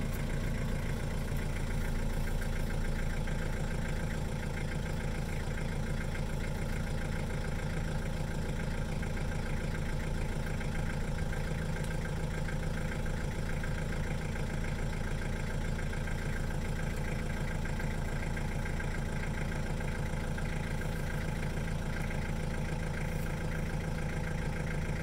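A vehicle engine idling steadily: an even, unchanging low hum.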